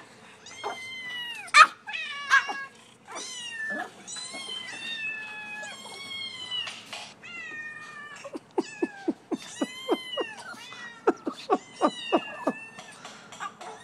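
Recorded cat meowing played through a phone's speaker: one meow after another, many falling in pitch. A quick run of short, sharp sounds comes in about eight seconds in and lasts some four seconds.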